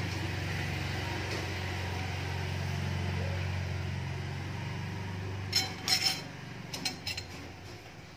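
A low steady hum, then a few sharp clinks of kitchenware, a pair a little over five seconds in and a couple more about a second later.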